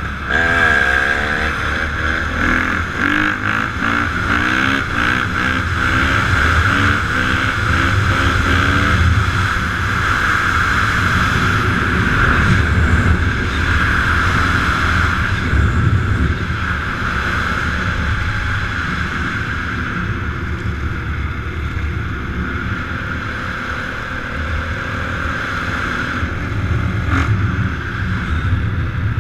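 Motorbike engines revving, rising and falling in pitch for the first several seconds, then running steadily.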